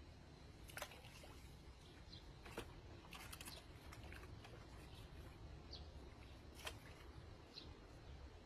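Near silence: low room noise with a handful of faint, scattered clicks.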